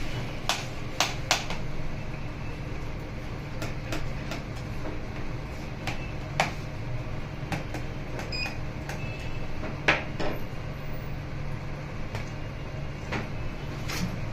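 Screwdriver undoing the bottom-panel screws of a Dell G15 5520 laptop: scattered small clicks and taps at irregular intervals, the loudest about ten seconds in, over a steady low hum.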